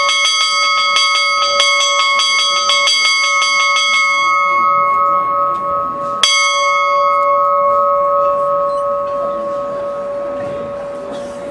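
A large bell struck rapidly, about five strokes a second, for about four seconds, then left ringing. One more stroke about six seconds in, and the tone rings on, slowly fading. It is the racetrack's signal bell for a greyhound race.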